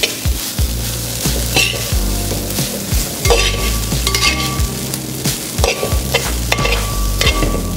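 A metal ladle stirring rice around a wide metal uruli, scraping and knocking against the pot again and again, while the butter in the pot sizzles under a low flame.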